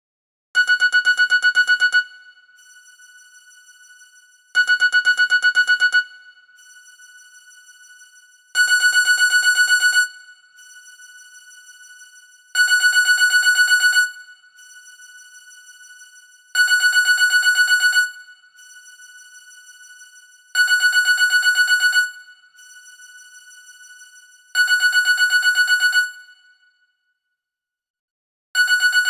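Mobile phone ringtone from an NGM Soap: a high electronic tone trilling rapidly in bursts of about a second and a half, repeating every four seconds, with a quieter tone between bursts, like a classic telephone ring.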